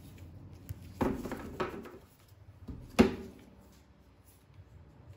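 Tarot cards being handled: a rustle of cards about a second in, then one sharp slap as a card or the deck is put down on the table about three seconds in.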